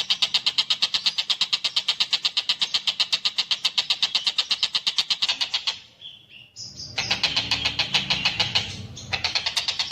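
Long-tailed shrike (tengkek buto) giving a fast, harsh rattling chatter of about ten rasping notes a second. It breaks off briefly about six seconds in for a few short higher notes, then the rattle resumes.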